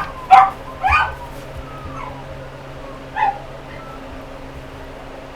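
Brittany puppy yelping: three sharp high yelps in the first second, then a quieter one about three seconds in, with faint whines between.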